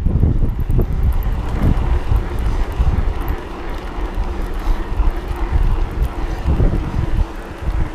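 Electric mountain bike ridden along a paved lane: wind rumbling on the camera microphone over tyre noise, with a steady motor hum.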